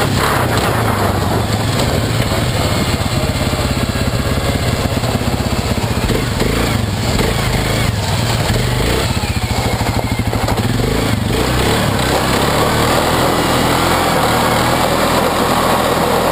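Suzuki KingQuad 750 ATV's single-cylinder four-stroke engine running under way, its revs rising and falling, heard from the front of the machine with wind noise over the camera. A few knocks come around the middle.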